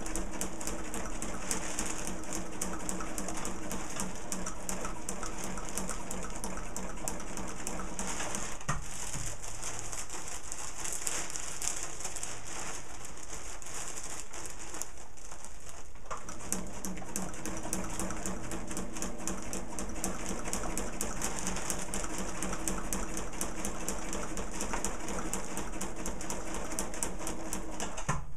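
Sewing machine stitching a long seam through layers of kite fabric: steady motor hum under fast, even needle clatter. The machine runs for about eight seconds, goes quieter for about eight seconds, then runs again to the end.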